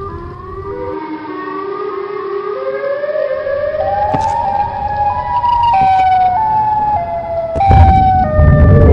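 Horror film score building tension: overlapping wailing synth tones climb in pitch step by step and grow louder, then step back down a little, with a deep rumble coming in near the end.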